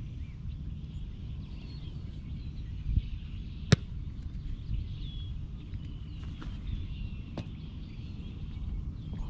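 Outdoor ambience: birds chirping faintly over a steady low wind rumble. A single sharp smack, the loudest sound, comes a little under four seconds in, with a duller thump about a second before it and a few fainter clicks later.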